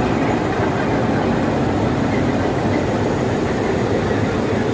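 YDM-4 diesel-electric locomotive running with a steady low engine rumble.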